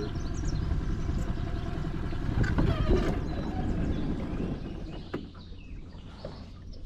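A boat motor running with a low, choppy rumble, which dies down about five seconds in.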